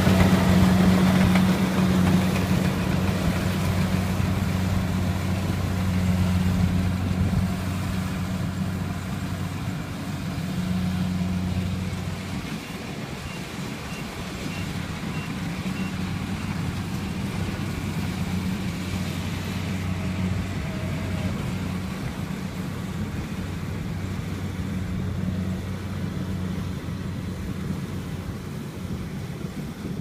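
Kubota tracked rice combine harvester's diesel engine running steadily at working speed while it cuts rice, a low even hum that fades gradually as the machine moves off across the field.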